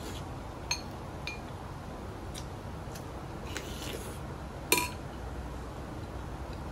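Eating utensils clinking against a bowl in a few light, scattered taps, with one sharper clink about two-thirds of the way through that rings briefly.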